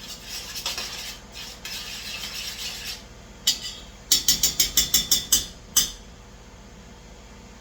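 A spoon stirring sauce in a pan, scraping for about three seconds. Then one clink of spoon on pan, followed by a fast run of about nine sharp clinks in under two seconds.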